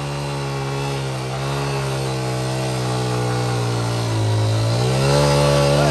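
Small motorcycle engine running under load as the bike ploughs along a water-filled irrigation channel, its rear wheel churning up mud and water. The engine note holds steady, sags about four seconds in, then picks up and gets louder.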